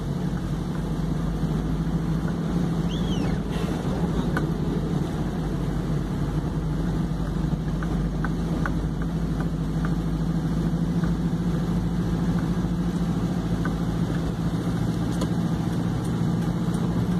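A vehicle's engine running steadily with road noise, heard from inside the cab while driving.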